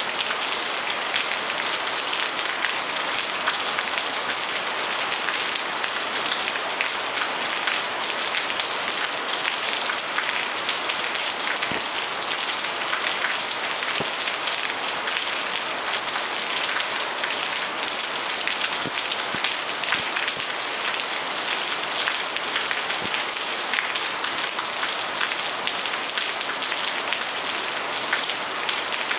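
Steady rain falling on a wet courtyard deck and plants: an even hiss with scattered individual drops ticking through it.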